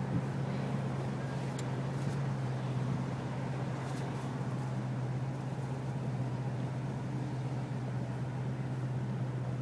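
Steady low mechanical hum with an even rushing noise over it, as of a vehicle running; a few faint clicks in the first few seconds.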